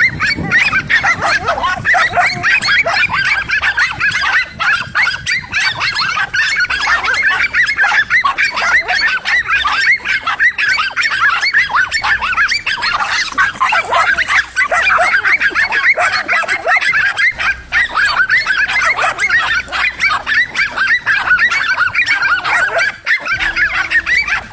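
Several dogs barking and yelping without pause, their barks overlapping into a constant din.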